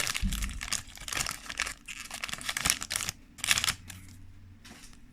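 Crinkling of a Yu-Gi-Oh booster pack's foil wrapper as it is opened, with quick rustles and clicks that die away about four seconds in.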